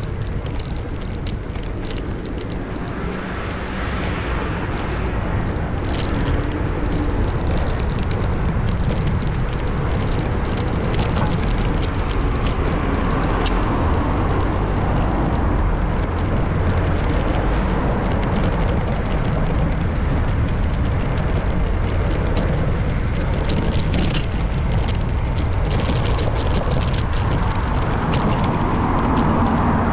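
Street noise heard from a moving bicycle: a steady low rumble of wind on the bicycle-mounted camera's microphone, mixed with road traffic that swells a few times as vehicles pass. Scattered light clicks run through it.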